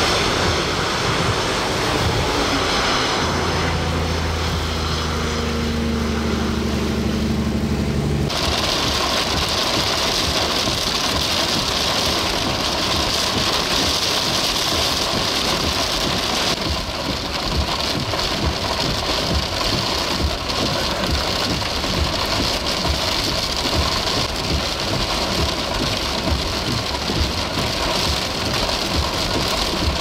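An engine running with a steady hum for about the first eight seconds. Then a sudden change to heavy rain hissing down hard, with wind buffeting and a low rumble underneath.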